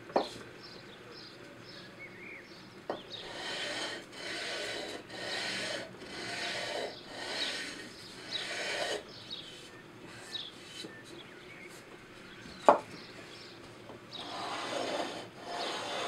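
Sandpaper on a hand sanding block rubbed back and forth along the edges of a wooden frame, in steady rasping strokes about one a second, pausing midway and starting again near the end. A single sharp knock sounds a few seconds before the end.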